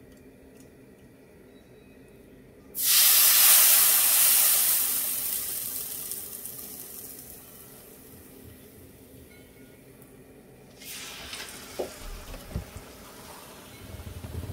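Hot frying oil sizzling as batter-coated bánh rế mold cooks in it. A loud sizzle starts suddenly about three seconds in and fades over several seconds. A second, quieter sizzle with a few light knocks follows near the end.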